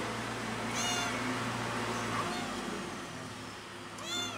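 Young tabby kitten meowing, two short high-pitched meows, one about a second in and one near the end: a kitten's loud call for its missing mother.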